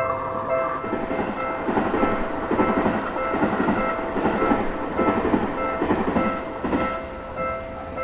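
Japanese level-crossing alarm ringing: an electronic bell repeating about twice a second while the crossing is closed. Under it, from about a second in, an approaching train's rumble and rhythmic wheel clatter, easing off near the end.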